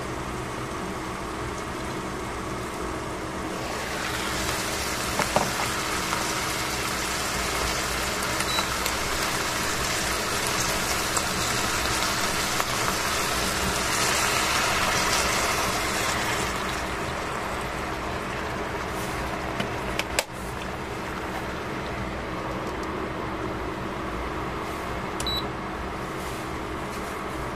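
Cabbage and carrots steaming and sizzling in a stainless-steel pot over a steady low hum. The hiss grows louder for a long stretch while the glass lid is off. A sharp clink about twenty seconds in fits the lid being set back on.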